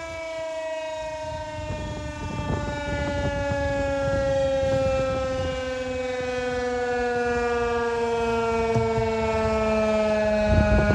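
Federal Signal 2001-130 single-tone rotating electromechanical tornado siren winding down, its tone falling slowly and steadily. A low rumbling noise grows underneath from about two seconds in.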